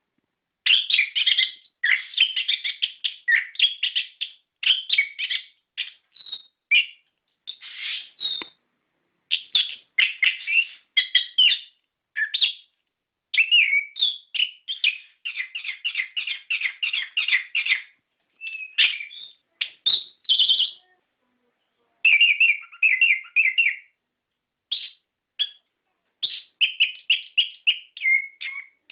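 Orange-headed thrush (anis kembang) singing a long, fast, varied song of quick chirping and whistled notes, in runs broken by short pauses.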